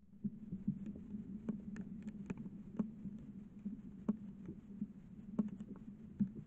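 Trail camera's steady low hum at night, with irregular soft ticks and clicks, about two a second, as something small moves about.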